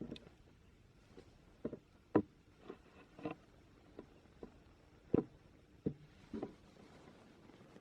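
About a dozen light clicks and taps at irregular intervals, the sound of small hard objects being handled and set down, with a couple of sharper knocks about two and five seconds in.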